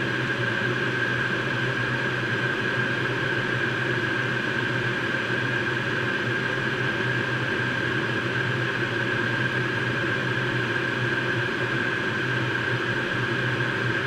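Steady cockpit noise of a Learjet 35A's twin Garrett TFE731 turbofans and airflow at cruise: an even rush with a constant high whine and a low hum.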